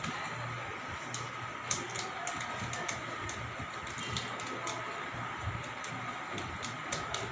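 Typing on a computer keyboard: irregular key clicks, a few per second, over a steady background hum.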